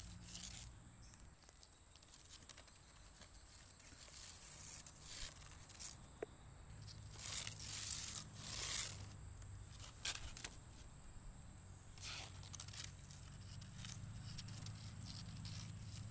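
A long leaf blade swished and dragged over coarse asphalt grit, making irregular rustling scrapes, loudest in a cluster about seven to nine seconds in. A steady high-pitched whine runs underneath.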